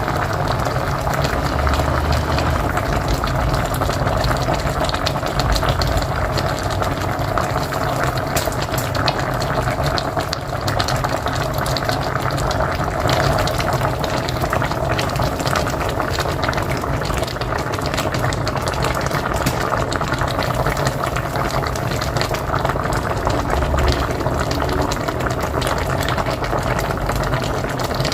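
A pot of mocotó (beef feet) boiling steadily on a wood-fired stove, with dense, continuous bubbling.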